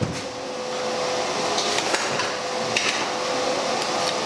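Zeny Cut 50 plasma cutter switched on and running. Compressed air hisses steadily through a makeshift scrap air hose, over a steady hum, with a few sharp clicks. It is being tested to see whether the hose hookup works.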